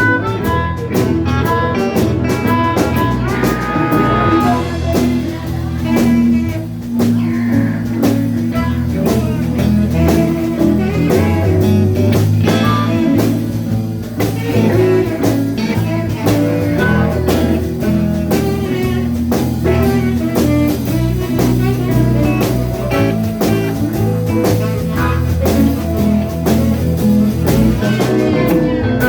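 Live blues band playing, with guitar over a drum kit keeping a steady beat.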